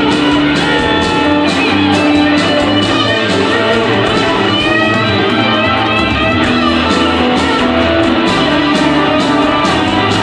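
A blues band playing live: electric guitar over bass and drums with a steady beat, with sliding, bent guitar notes about halfway through. It is heard from the audience at a distance.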